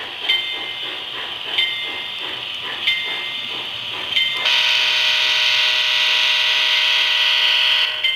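Sound system of a model streamlined diesel passenger locomotive: a short bell-like ding repeats about every 1.3 seconds, then about four and a half seconds in the horn sounds one long chord blast of over three seconds, all over a steady hiss.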